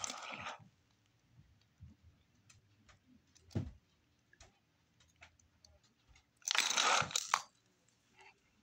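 A fabric lanyard being hand-sewn with a needle and thread: soft scratchy rustles and small clicks. There is a light knock about three and a half seconds in, and a louder scratchy rustle of under a second about six and a half seconds in.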